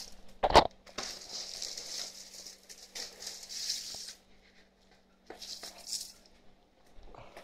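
Sticker sheets in clear plastic wrap being handled and turned over, the plastic rustling and crinkling in two stretches. A single thump about half a second in is the loudest sound.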